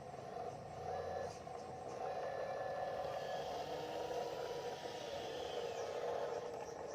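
Electric motors and gearing of radio-controlled model construction machines running with a steady whir, with brief higher-pitched whines coming and going over it.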